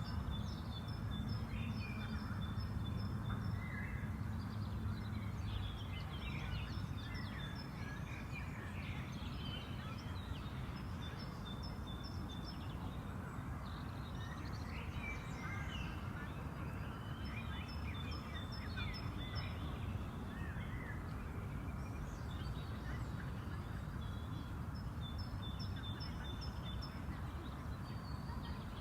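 Spring park ambience: several birds singing and calling, among them a fast run of short, evenly spaced chirps that comes back four times, over a steady low rumble.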